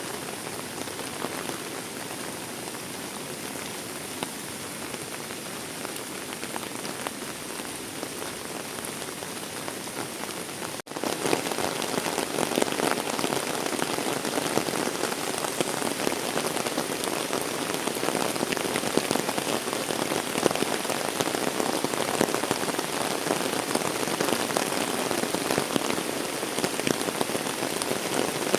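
Heavy rain falling, a steady hiss of countless drops. About eleven seconds in the sound cuts out for an instant and comes back louder and fuller, the rain heavier.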